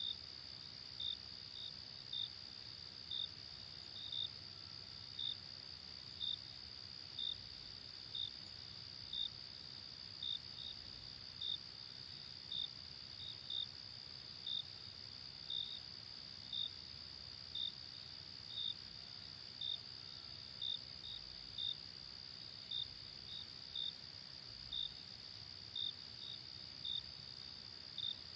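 Crickets chirping at night: a steady high-pitched insect trill underneath, with louder short chirps repeating about once a second, now and then two in quick succession.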